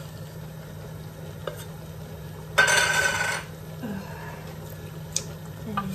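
Wooden spoon scraping and stirring canned tuna into a simmering sauce in a frying pan, with a light sizzle. About two and a half seconds in, a loud, sudden burst of noise lasts just under a second.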